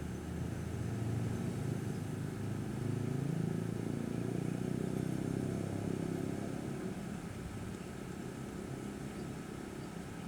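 A motor engine passing by, its low hum swelling over the first couple of seconds and fading away over the last few.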